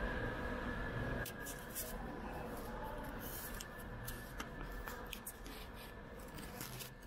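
Underground railway platform ambience: a steady hum with a thin high whine that stops about a second in, leaving a quieter hiss with scattered light clicks and taps.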